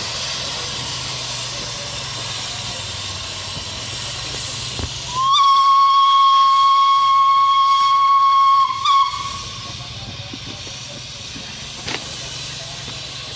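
Steam locomotive B 5112 sounding its steam whistle: one steady note of about four seconds, cut off and followed by a brief second toot, over a continuous hiss of escaping steam.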